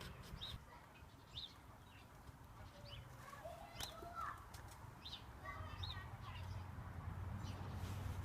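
Faint bird chirps, short calls repeating every second or so, over a low steady hum.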